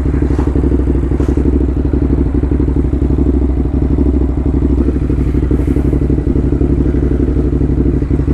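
Ducati Hypermotard's V-twin engine running at a steady speed with an even, pulsing beat and no revving.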